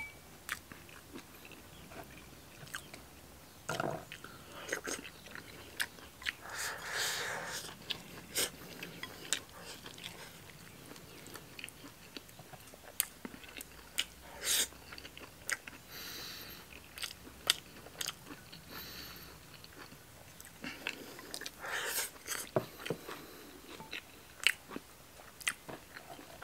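A person eating with chopsticks: close-up chewing and biting of stir-fried black bolete mushroom slices and rice, with short sharp clicks of chopsticks against porcelain bowls throughout.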